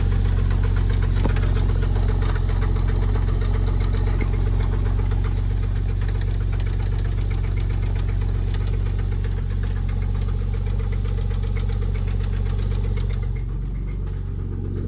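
Porsche 997 911 flat-six engine running with a steady, rapid clunking knock: the sign of a thrown connecting-rod bearing shedding metal chunks into the oil, which the owner first took for an IMS bearing.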